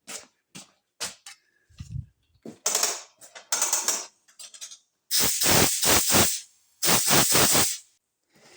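Scattered clicks and handling knocks, then two long runs of rapid ratcheting clicks, about five and seven seconds in.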